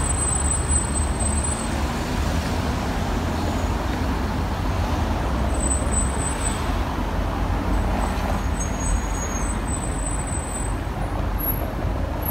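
Steady city road traffic: a continuous rumble of passing cars and buses.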